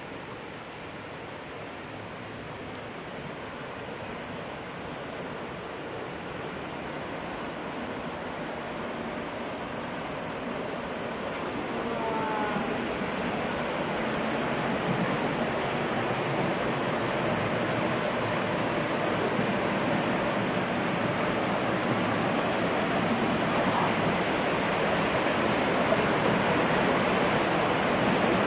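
Rushing water of a jungle stream and waterfall, a steady roar that grows steadily louder.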